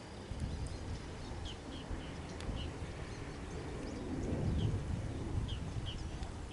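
Outdoor ambience: a handful of short, high bird chirps, spaced irregularly, over a steady low rumble that swells about two-thirds of the way in.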